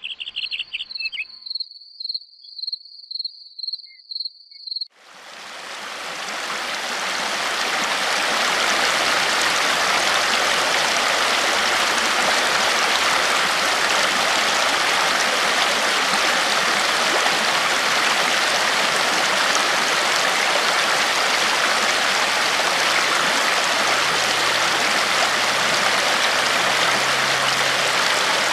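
Shallow river running fast over stones, a steady rush that fades in about five seconds in. Before it comes in, a high, evenly pulsing trill sounds for a few seconds.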